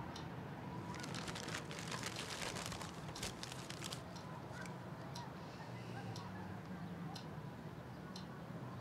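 Paper wrapping and a cardboard box rustling and crinkling as a gift parcel is handled and unwrapped, busiest from about a second in to past the third second, then a few scattered light clicks and crackles.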